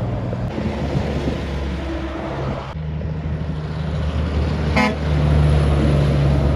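Heavy diesel trucks running past on the highway. A bonneted truck-and-dog rig's engine drone grows to its loudest over the last second and a half as it passes close by. A short horn toot sounds just under five seconds in.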